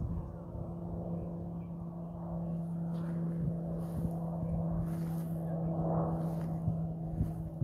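Distant aircraft engine drone: a steady low hum, with a few faint rustles partway through.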